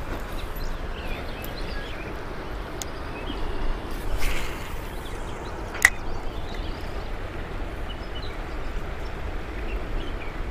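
A spinning-rod cast: a swish about four seconds in, then a single sharp click just before six seconds. Under it runs a steady rushing background with faint bird chirps.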